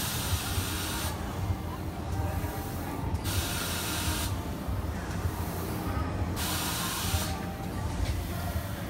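Kiddie amusement ride's machinery letting out air in three hissing bursts of about a second each, roughly three seconds apart, over a steady low mechanical rumble from the running ride.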